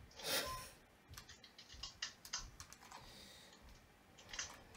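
Small plastic clicks and light scrapes from a plastic shuriken toy being turned and fiddled with in the hands, with a louder scrape about half a second in.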